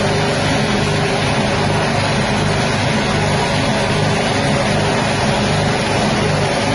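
Rice-husk grinding machine running steadily, driven by its 6.5 HP petrol engine at a constant speed.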